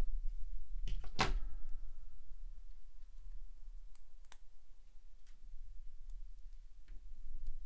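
LEGO plastic pieces being handled and pressed together: scattered small clicks and taps, with one sharper click about a second in that rings briefly.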